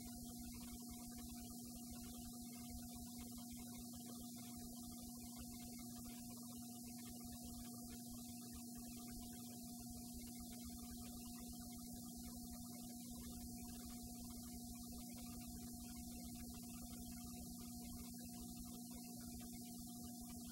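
Steady electrical hum with a fainter higher tone over it and a thin hiss, unchanging.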